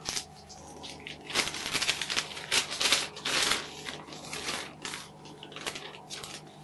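A folded paper instruction leaflet being unfolded and handled, with irregular rustling and crinkling of the paper.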